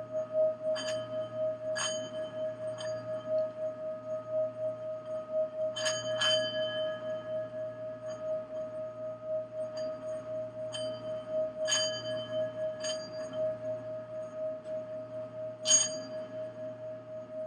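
Singing bowl sustaining one steady ringing tone with an even, pulsing wobble. Bright metallic strikes ring out over it about seven times, the loudest near the end.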